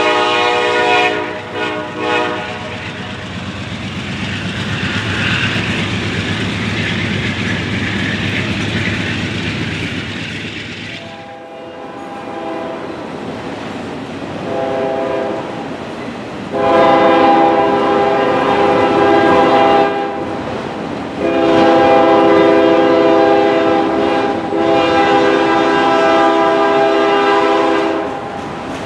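Freight train rolling past, its cars rumbling and clattering over the rails, with a locomotive's multi-note air horn sounding. The horn ends about two seconds in, then comes back after a dozen seconds as a series of loud, long blasts that run to the end.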